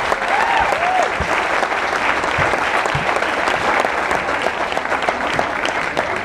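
Audience applauding, with a couple of rising-and-falling whoops in the first second.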